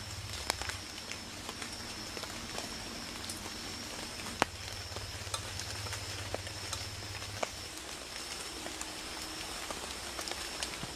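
Outdoor night ambience: a steady hiss with scattered, irregular sharp crackles, under a steady high-pitched tone. A low hum runs beneath and stops about seven seconds in.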